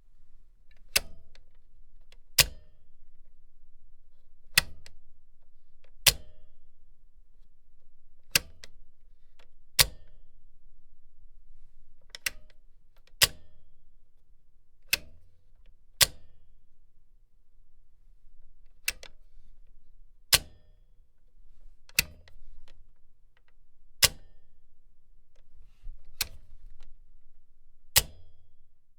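Mechanical machine switch being clicked over and over, one sharp click every second or two, about sixteen in all, with a faint low hum underneath.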